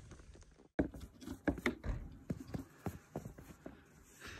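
Snow shovel and boots knocking and scraping on a snow-covered VW van roof as snow is cleared off it: irregular knocks and scrapes, starting after a brief dropout just under a second in.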